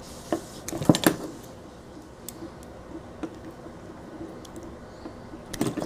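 Sharp clicks and knocks of small plastic and metal parts being handled as a microwave door interlock switch is worked loose: a cluster about a second in and another near the end.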